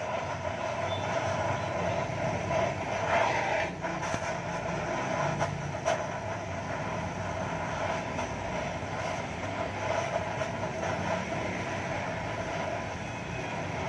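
Gas welding torch hissing steadily as it welds a car's exhaust pipe, with a few faint clicks.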